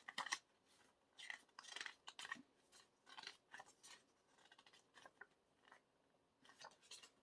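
Pages of a photo book being turned and handled: a string of faint, irregular paper swishes and rustles.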